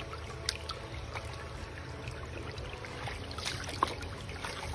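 Shallow creek water running and trickling over rocks, with a few faint small ticks.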